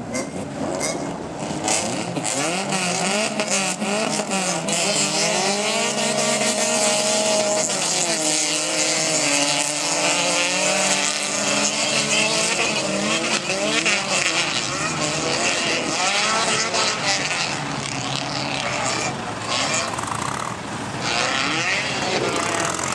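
A pack of small hatchback race cars racing on a dirt track, several engines running together, their pitch repeatedly rising and falling as the drivers accelerate, change gear and lift for corners, over a steady hiss.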